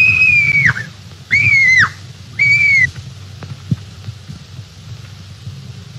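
Three shrill, high-pitched cries, each under a second, holding one pitch and dropping off at the end. Low hiss and rumble of an old film soundtrack underneath.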